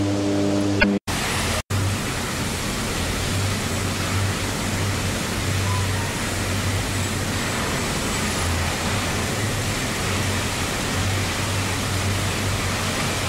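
Steady roar of an electric arc furnace melt shop: an even rushing noise with a low hum that keeps swelling and fading. Music plays for about the first second and is cut off.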